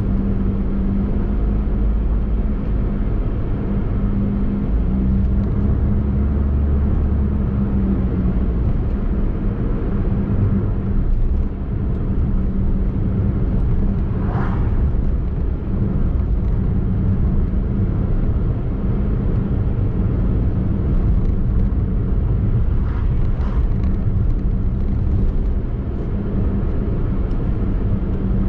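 Daihatsu Mira e:S kei car driving at a steady pace: continuous engine and tyre rumble with a steady low hum. A brief higher-pitched sound comes about halfway through.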